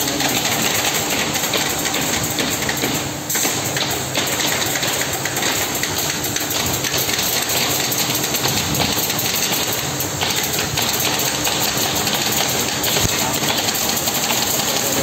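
Steady, loud noise of woodworking machinery running in a workshop, with a faint steady hum under it.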